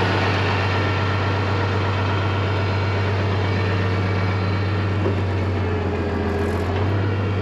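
International Harvester 856 tractor engine idling steadily, a constant low drone.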